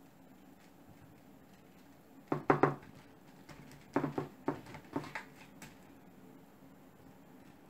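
Short clinks and knocks on a stainless-steel dish as venison fillets are handled and rubbed with pepper: a quick cluster a little over two seconds in and another, longer cluster at about four to five seconds.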